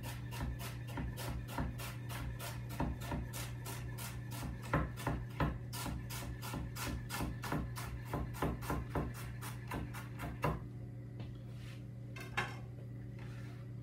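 Chef's knife thin-slicing a fennel bulb on a wooden cutting board: a rapid, even run of knife strokes, about four a second, that stops about ten seconds in. Near the end the blade scrapes the slices across the board.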